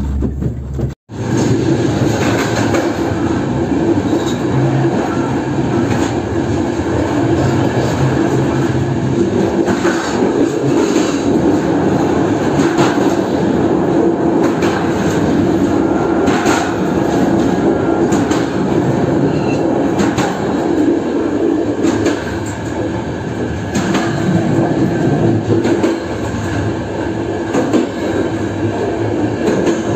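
Passenger train running along the track, heard from inside the coach: a steady rolling rumble and hum from the wheels on the rails, with irregular sharp clicks as the wheels pass over rail joints. There is a brief break in the sound about a second in.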